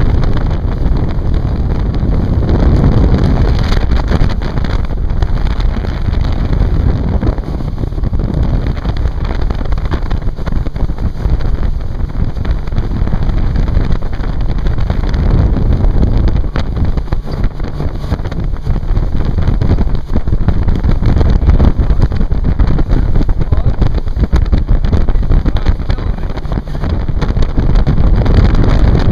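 Strong wind buffeting the microphone on a motorboat under way, over the steady running of the boat's motor. It comes in rushes that rise and fall a little.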